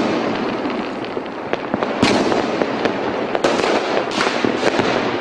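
Fireworks going off: a dense, continuous crackle with several sharp bangs.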